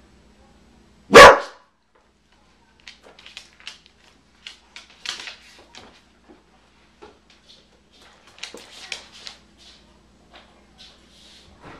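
A corgi gives one loud, sharp bark about a second in. Faint scattered ticks and scuffs follow as the dog gets up and moves off its mat on a hardwood floor.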